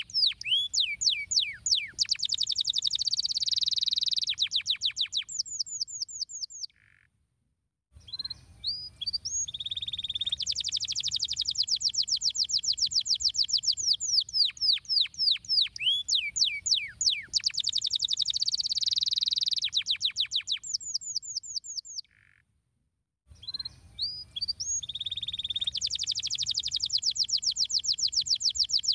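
Domestic canary singing: long phrases of fast, high downward-sweeping notes and rapid rolling trills. The song breaks off twice into brief silence, once at about seven seconds and again past twenty-two seconds, then resumes.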